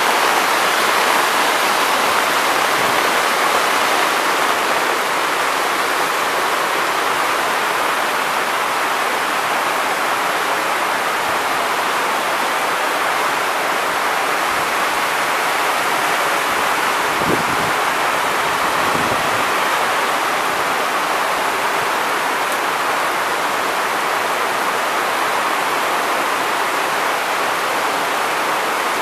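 Muddy floodwater rushing fast down a path in a torrent, a steady, even rushing noise.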